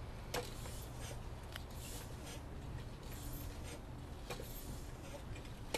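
A few sharp, isolated clicks and faint rubbing from a homemade pneumatic airgun being handled while it is readied to shoot, over a steady low rumble.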